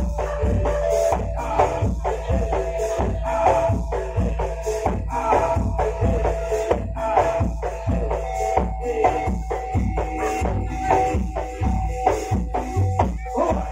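Live barongan dance accompaniment: drums and percussion beating a fast, steady rhythm, with a held melody note sounding above them and changing pitch partway through.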